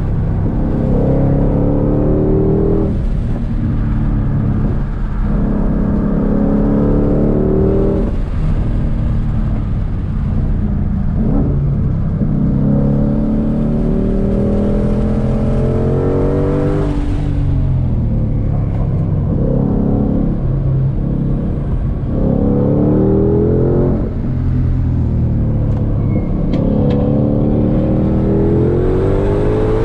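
2022 Shelby GT500's supercharged 5.2-litre Predator V8, heard from inside the cabin under hard track driving. Its pitch climbs steadily through each gear, drops at the shifts and lifts, then climbs again, over and over.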